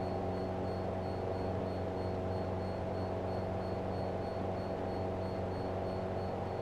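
Single-engine light aircraft's piston engine and propeller running steadily at takeoff power, heard inside the cockpit as a constant drone that does not change in pitch.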